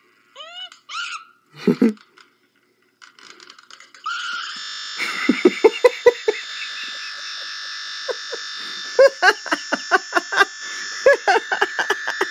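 Laptop speakers give short gliding squeals from a scream clip. About four seconds in, the sound freezes into a steady harsh buzz: the audio buffer looping as Windows crashes to a blue screen. Over the buzz, someone laughs in short rapid bursts.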